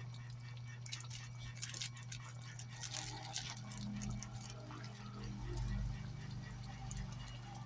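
Chicken curry in coconut milk simmering in a pan, with faint bubbling and small ticks over a steady low hum.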